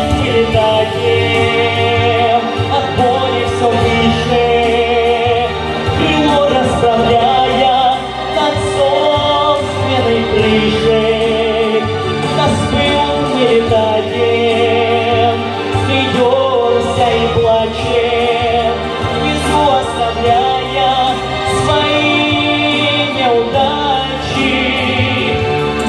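Music: a pop song's instrumental break between verses, a wavering melodic lead over steady bass and backing.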